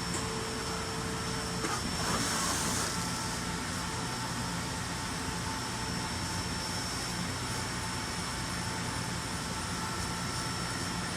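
Nakamura-Tome Super NTM3 CNC turning center running through its program: a steady machine hum with a few thin, high whining tones, and a short rush of hiss about two seconds in.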